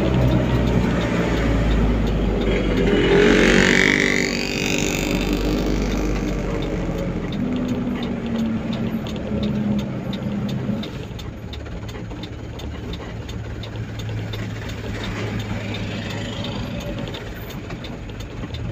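A vehicle's engine running under road noise, heard from inside the cab while driving slowly. Oncoming vehicles pass close by with a rushing sound, loudest about three to five seconds in.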